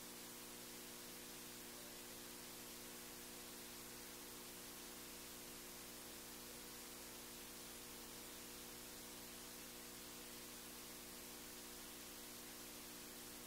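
Near silence: a faint, steady electrical hum with hiss, with no other sound.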